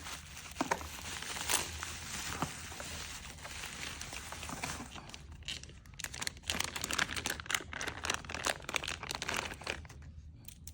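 Packaging crinkling and rustling as it is handled during an unboxing, with a dense run of quick crackles and clicks in the second half that stops shortly before the end.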